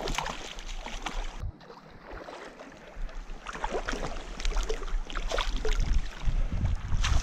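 River water rushing and splashing, with wind buffeting the microphone in gusts. The sound drops away briefly about a second and a half in, then grows louder with more low rumble.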